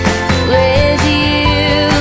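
Background music: a melody of held notes over a steady beat.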